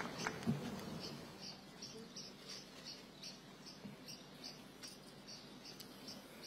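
Scattered applause dying away, then a small bird chirping over and over, about three short high chirps a second.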